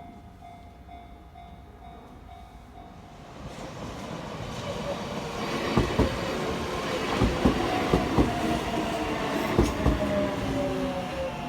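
Kintetsu Minami-Osaka Line electric train passing over a level crossing. The crossing's warning bell rings in an even beat, then the train comes up from about three seconds in and runs past with loud clacks of its wheels over the rail joints. A whine falls in pitch near the end.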